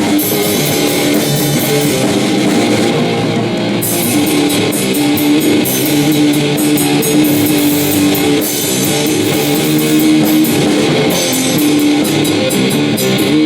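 A live rock band jamming: electric guitar playing sustained notes over a drum kit, with the cymbals and drums getting busier about four seconds in.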